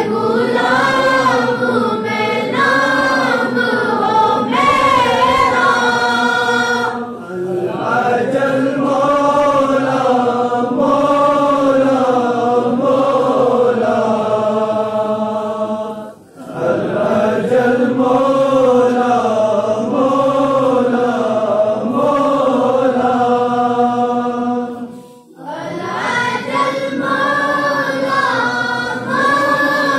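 A group of boys and young men singing a devotional tarana together in long phrases, with short breaks for breath about every nine seconds.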